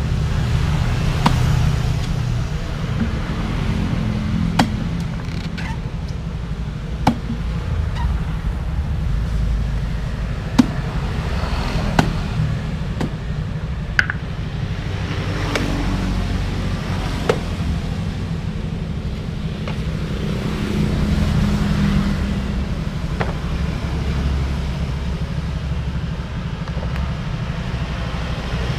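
A blade chopping into young green coconuts, sharp single knocks every second to few seconds, over the steady low rumble of street traffic.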